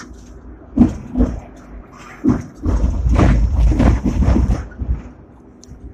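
Hong Kong double-decker tram running on street track, heard from the driver's cab: wheels knocking over the rails a few times, then a louder stretch of rumbling and rattling for about two seconds midway.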